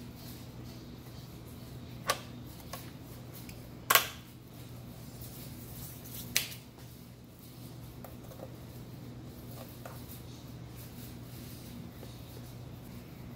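Plastic clicks and clacks of a Cuisinart sandwich maker's lid being lowered and its front latch snapped shut: a few sharp clicks, the loudest a double clack about four seconds in and another about six seconds in. A steady low hum sits under them.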